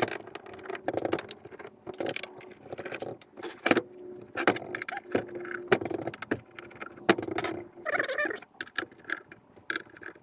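Irregular light metallic jingling and clinking with scattered sharp knocks, over a faint steady hum.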